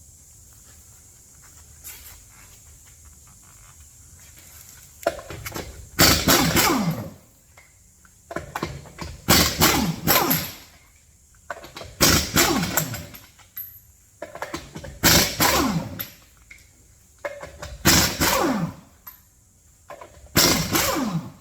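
Power wrench spinning lug nuts off a pickup's front wheel: six separate runs about three seconds apart, each falling in pitch as it winds down.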